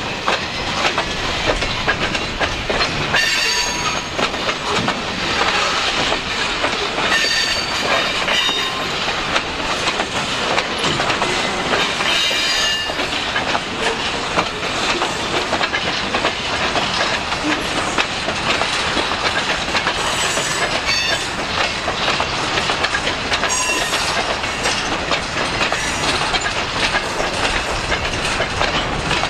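Freight cars rolling past close by: a steady rumble and clatter of steel wheels on the rails, with brief high-pitched wheel squeals about five times.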